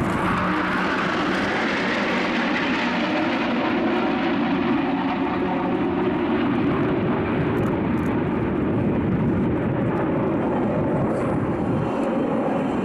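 Steady jet noise from a formation of six Northrop F-5E Tiger II fighters flying overhead, each powered by two General Electric J85 turbojets.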